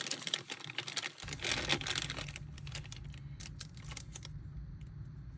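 Plastic-wrapped packs of disposable syringes being handled, crinkling, with quick clicks and ticks that are densest in the first two seconds. A steady low hum comes in about a second in.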